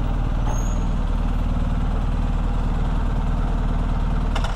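BMW R1250GS's 1254 cc boxer-twin engine running steadily at low revs, then cutting off abruptly near the end.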